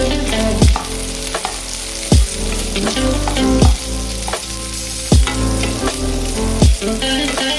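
Sliced onions, ginger and bay leaves sizzling in hot oil in a nonstick wok, stirred partway through with a wooden spatula. Background music with a low beat about every second and a half plays over it.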